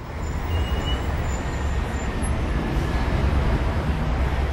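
Steady low rumble with a hiss over it, fading in at the very start.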